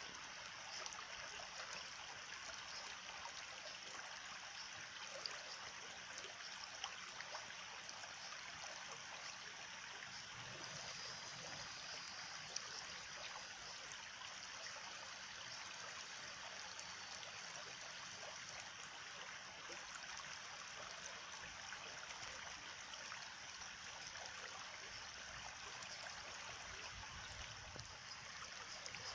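A small stream trickling and burbling steadily.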